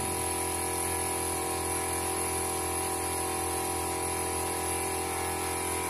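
A steady mechanical hum with several constant tones and a faint high whine, unchanging in level.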